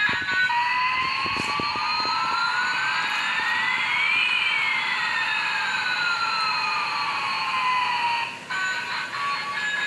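Bump-and-go toy airplane's electronic sound effect from its small speaker: a rising tone and a falling tone that cross midway over a hiss, like a siren. It cuts off suddenly near the end and the toy's jingle starts again.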